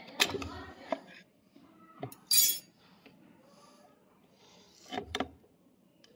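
Small metal parts and tools clinking and clicking against each other and the bench while an inline diesel injection pump is being reassembled, with a short bright hiss just after two seconds in.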